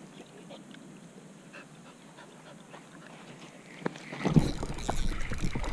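A dog panting as it wades in shallow pond water, with faint clicks from a spinning reel being cranked. About four seconds in, a louder low rumble sets in.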